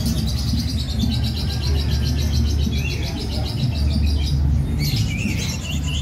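Caged songbirds chirping: one sings a long, rapid trill of high repeated notes for about four and a half seconds, then short chirps follow. A steady low rumble sits underneath.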